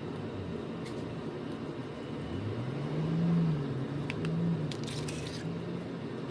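A few faint small clicks, like small phone parts and tools being handled on a workbench, over a steady low background hum. Through the middle, a low droning tone rises and then holds for a few seconds.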